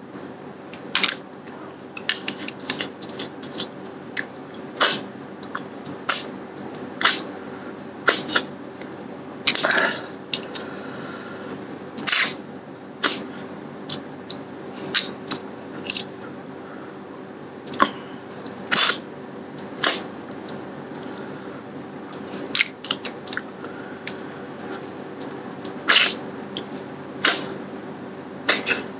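Close-up mouth sounds of a man eating snail curry and rice by hand: irregular wet smacks and clicks of chewing and lips, a few longer sucking sounds among them, over a steady low hum.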